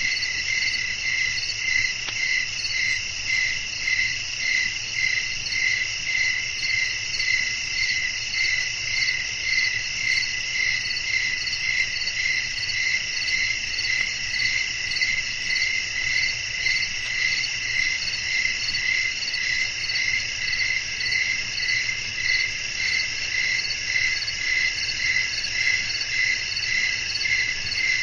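Crickets chirping in a dense night chorus: several overlapping high trills that pulse evenly, about one and a half times a second.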